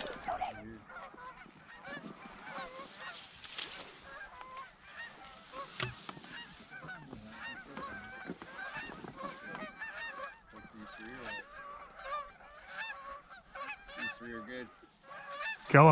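Geese honking and clucking: many short, overlapping calls that rise and fall in pitch, from a flock coming in over the decoys.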